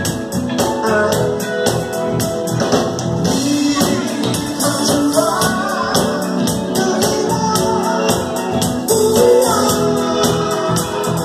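Live band music: a lead singer over guitar and drums, with a steady beat of high percussion hits a few times a second.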